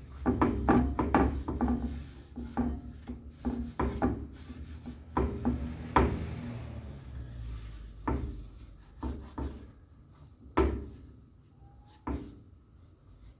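Hardwax oil being rubbed by hand into a walnut board: irregular rubbing strokes with sharp wooden knocks as the board shifts on the work surface, several in quick succession at first and then spaced out about a second apart.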